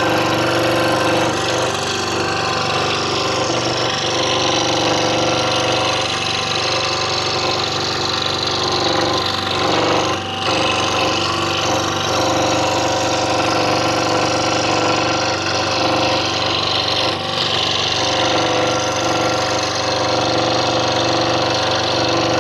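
Scroll saw running steadily while its blade cuts a thin wooden puzzle blank: a constant motor hum under the rapid buzz of the reciprocating blade. The sound briefly dips about ten seconds in and again about seventeen seconds in.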